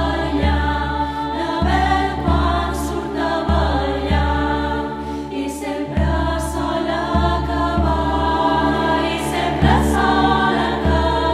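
Women's choir singing a traditional Mallorcan song-dance, over sustained low cello notes and a regular percussion beat.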